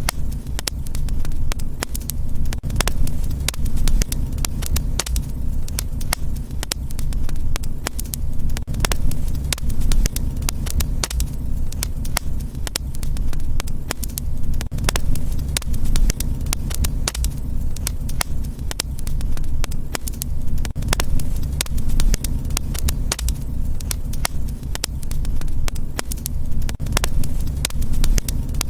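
Wood fire in a fireplace crackling steadily, with frequent sharp pops and snaps over a low rumble of flames.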